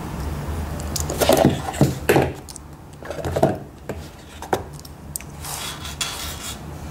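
Hands handling a cardboard watch box, its fabric cushion and a paper booklet on a wooden table: a few irregular knocks, taps and rubs over a steady low hum.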